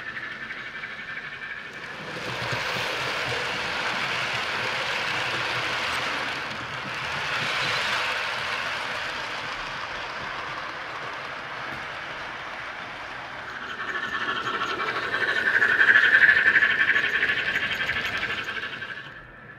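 00 gauge model trains running along the layout's track, the running noise swelling as a train passes close about sixteen seconds in.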